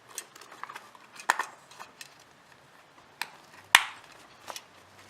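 Scattered clicks and knocks of small camera accessories such as extension tubes and teleconverters being handled and set down, the loudest a sharp knock a little under four seconds in.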